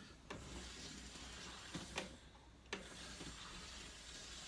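Toy train's small motor and gears whirring faintly, with a few light plastic clicks.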